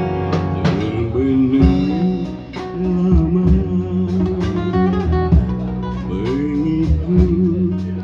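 Live band music: a man singing phrases into a microphone over strummed and plucked guitars.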